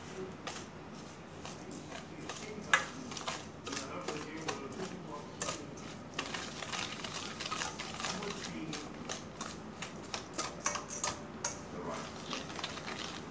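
Wire whisk beating eggs and brown sugar in a stainless steel bowl, its wires clicking and scraping against the metal in quick, irregular strokes that come thicker from about halfway through.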